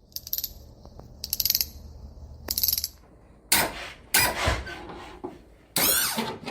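Three short bursts of rapid metallic clicking, one about every second and a quarter. These are followed by three loud noisy rushes, the last with a falling sweep.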